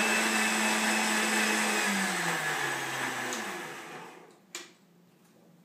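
Countertop jug blender running steadily while mixing a shake of cottage cheese, apple and water, then switched off about two seconds in, its motor note falling as it spins down and dies away by about four seconds. A single click follows soon after it stops.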